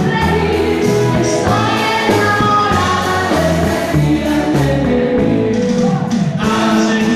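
Loud music with several voices singing together.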